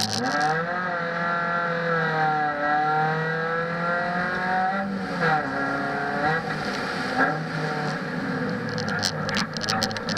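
Proton Savvy's 1.2-litre D4F four-cylinder engine driven hard on a lap, its pitch climbing under acceleration and dropping away several times as the car shifts and slows for corners. A few short sharp noises sound near the end.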